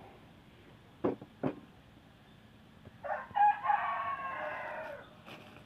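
A rooster crows once, a call of about two seconds that sags slightly in pitch at the end. Before it come two short knocks of cardboard being handled.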